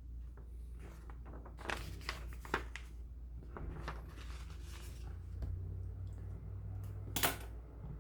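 A few short knocks and clicks, the loudest near the end, over a steady low hum in a small room.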